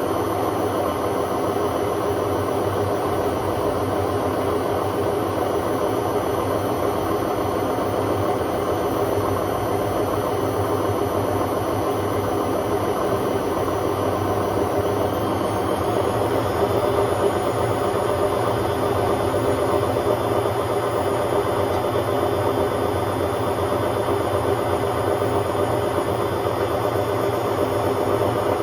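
Hotpoint Aquarius WMA50 washing machine running a loud spin: a steady rush and hum of the drum and motor. A thin high motor whine rises in pitch about fifteen seconds in as the drum speeds up, then holds steady.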